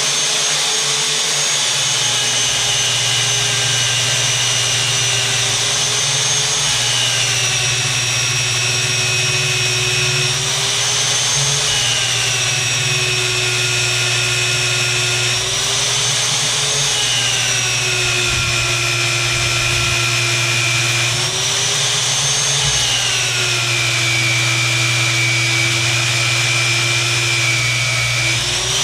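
Slugger magnetic drill running an annular cutter through steel plate. The motor's whine drops in pitch as the cutter bites and the motor slows under load, holds low for a few seconds, then climbs back; this happens four times.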